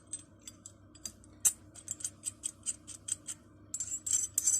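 Small metal clicks and taps from the parts of an antique combination multitool (adjustable spanner, pipe wrench, hammer and screwdriver in one) being handled. The clicks are irregular, with a quicker flurry near the end.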